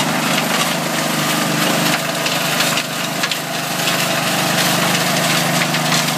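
A gold trommel plant running: a steady engine drone with gravel and rock rattling through the rotating screen drum and along the conveyor belt.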